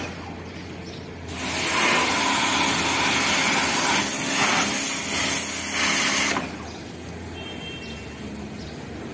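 Bosch Aquatak 125 1500-watt electric pressure washer running, its motor humming under the hiss of the water jet on the motorcycle and wet ground. It starts about a second in and cuts off sharply about six seconds in when the trigger is released.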